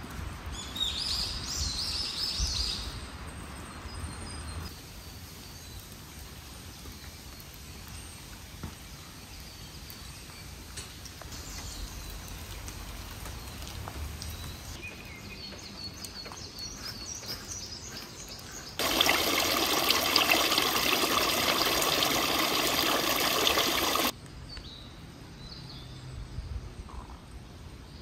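Birds chirping in short bursts over quiet outdoor ambience. About two-thirds of the way in, a loud, even rushing noise starts abruptly and cuts off about five seconds later.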